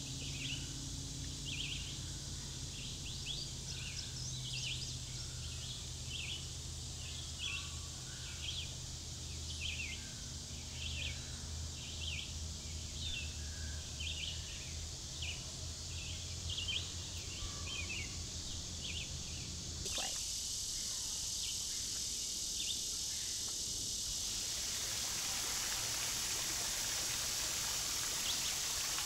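Woodland ambience: a short, high call repeats a little more than once a second over a low, steady hum. About twenty seconds in, this gives way to the steady rush and splash of a small waterfall pouring over a rock ledge into a shallow creek.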